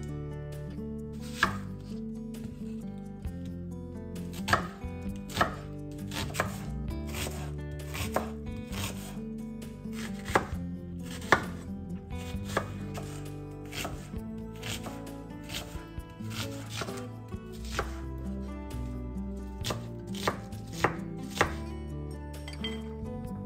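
Kitchen knife chopping peeled onions on a wooden cutting board: a run of sharp, irregular strikes, roughly one to two a second.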